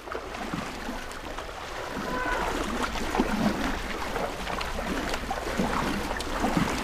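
Elephants moving in a river: irregular water splashing and sloshing over a steady rush of flowing water.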